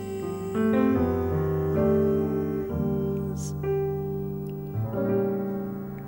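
Piano playing slow, held chords in a jazz ballad, with no singing in this stretch.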